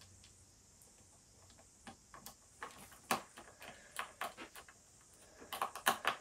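Screwdriver turning a screw into the plastic bottom cover of an HP ProBook 450 G2 laptop: a run of small, irregular clicks and ticks that starts about two seconds in and is loudest near the end.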